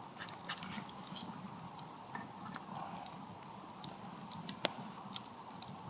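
Wood campfire crackling: scattered, irregular small pops and snaps over a faint hiss.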